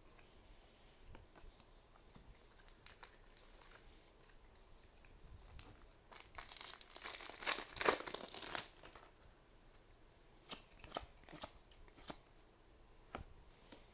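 A foil trading-card booster pack being torn open and crinkled, a dense stretch of tearing and crackling lasting about three seconds midway. Scattered light clicks and snaps of cards being handled come before and after it.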